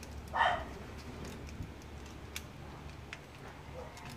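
Faint scattered clicks and handling sounds as a short test wire is pushed into the terminals of an electrical outlet and the outlet is held in place, over a steady low hum.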